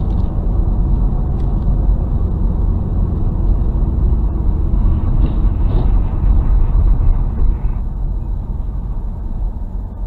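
Steady low road rumble of tyres and engine, heard from inside a car driving on a highway, getting quieter near the end as the car slows.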